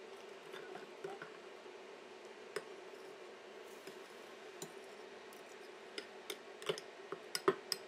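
A black plastic utensil stirring milk and baking powder in a ceramic mug: faint scraping with light clicks against the cup, the taps coming more often in the last couple of seconds. A steady low hum runs underneath.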